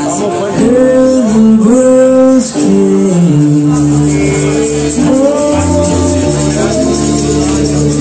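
A rock band playing live, with electric guitars, bass and drums. A gliding melody line runs over a steady, fast cymbal beat.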